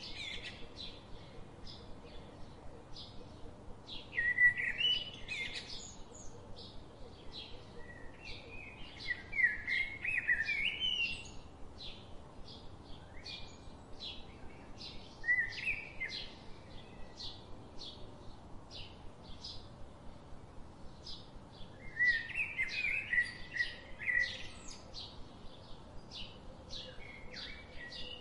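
Songbirds chirping: a steady run of short, high chirps, with louder warbling song phrases breaking in every few seconds.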